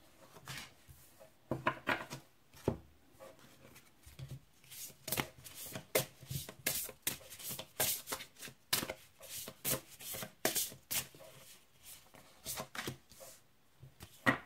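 A deck of oracle cards being shuffled by hand: a run of quick, uneven clicks and slaps of card on card, busiest in the middle.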